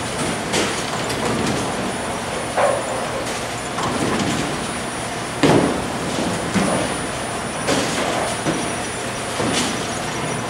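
Bowling alley din: a steady rumble of bowling balls rolling down the lanes, broken by about eight sharp knocks and clatters of balls and pins, the loudest about halfway through.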